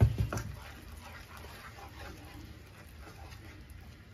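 A wooden spatula knocks once against a frying pan, then scrapes and stirs butter into a thick shallot and herb sauce.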